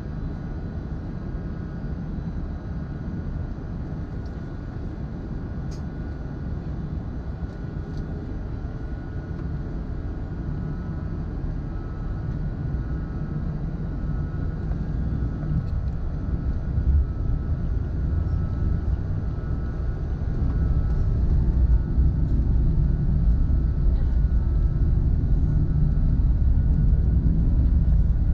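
Cabin noise inside an Airbus A380 while it taxis: a steady low rumble from its Rolls-Royce Trent 900 engines and rolling landing gear, with a faint steady whine, getting louder about two-thirds of the way through.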